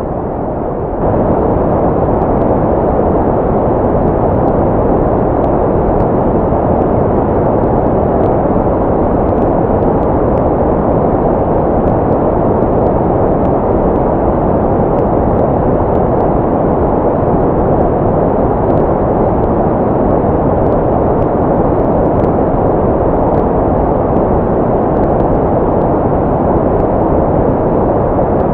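Steady white-noise track for baby sleep, meant to imitate sounds heard in the womb: a deep, even hiss with most of its weight low, which steps up slightly in level about a second in and then holds without change.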